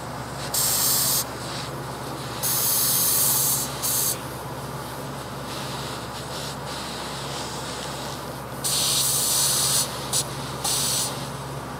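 Compressed air hissing from an air-bearing end mill sharpening fixture in several separate bursts, the longest about a second, with a steady low hum underneath.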